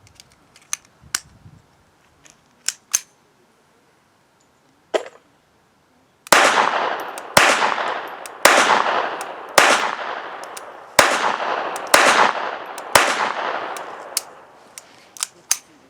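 Seven shots from a Beretta 21A Bobcat .22 LR pocket pistol firing Remington Thunderbolt high-velocity rounds, about one a second, each with a long fading tail. Every round cycles the action without a jam. A few light clicks of the gun being handled come before the shots and just after them.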